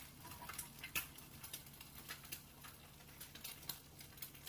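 Eggs frying in oil in a pan while being scrambled: scattered small crackles and light ticks, over a steady low hum.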